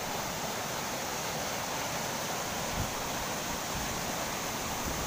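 River water rushing over a low concrete weir and churning into white water, a steady hiss.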